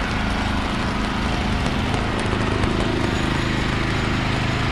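Steady rain mixed with street traffic, with a motor vehicle engine running close by as a low, steady hum.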